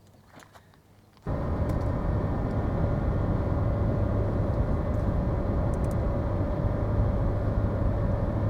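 A Ford F-150 pickup on the move, heard from inside the cab as a steady drone of engine and road noise with a low hum. It cuts in abruptly about a second in, after a quiet start.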